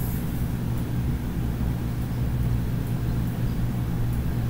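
A steady low hum with no change or break.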